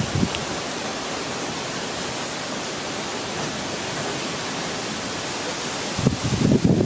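Summer storm: a steady rushing noise of strong wind and rain. Gusts buffet the microphone with low rumbling blasts about six seconds in.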